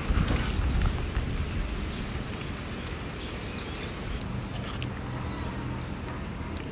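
Outdoor ambience with a steady, evenly pulsing insect drone, and louder low rumbling in the first second.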